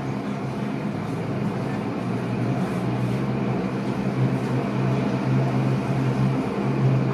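Saab 340B's twin General Electric CT7 turboprop engines running with propellers turning, a steady drone with a low propeller hum that slowly grows louder.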